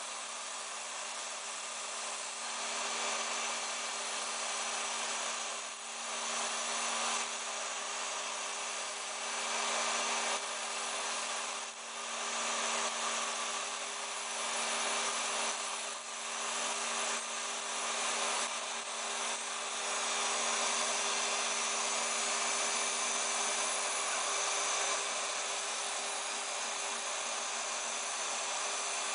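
Small DC-motor spindle of a homemade CNC router running steadily as its end mill cuts Depron foam, with a vacuum cleaner hissing at the dust-extraction nozzle beside the cutter. A steady two-note hum sits under a wide hiss, with a few brief dips in level.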